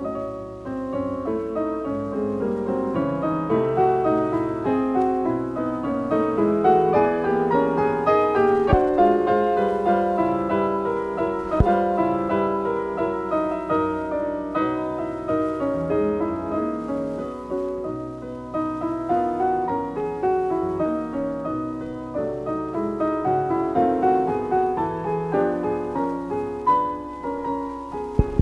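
Background piano music, a continuous flow of notes, with a couple of brief sharp clicks over it, one about twelve seconds in and one near the end.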